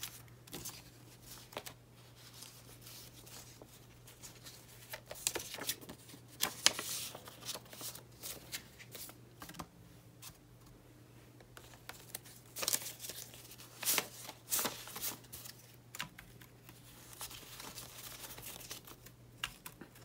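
Paper banknotes being handled by hand: irregular crisp rustles and flicks as bills are counted, pulled out and slid into place, in short clusters with pauses between. A faint steady low hum runs underneath.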